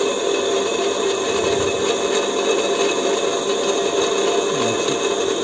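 Electric bench grinder running steadily with an even hum and whine, the wheel spinning free with no tool pressed to it.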